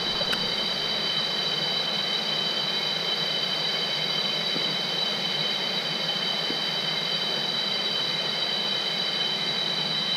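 Steady rush of a shallow, rocky rainforest stream, with a constant high-pitched insect drone over it.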